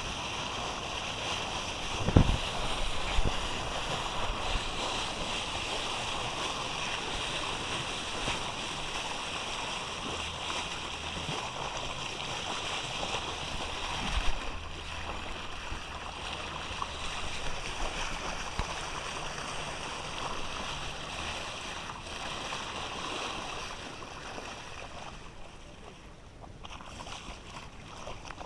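Motorboat under way: a steady rush of water and wind with a low engine drone through the middle, and a sharp thump about two seconds in and another about halfway.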